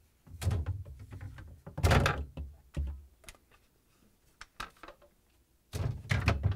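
Refrigerator shelves being lifted off their rear hooks and handled: a series of knocks and clatters. The loudest comes about two seconds in, with another cluster near the end and a few single clicks between.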